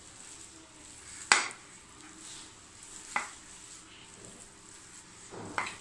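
A hand is squishing and mixing a moist minced-meat and potato filling on a plate, making a soft, wet rustle. Three sharp clicks against the plate come about two seconds apart; the first is the loudest.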